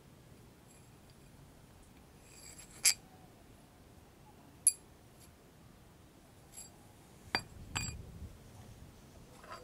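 Metal clinks of a steel washer and a long rusty bolt being handled: single sharp clinks a couple of seconds apart, then two close together near the end as they are set down on a steel workbench.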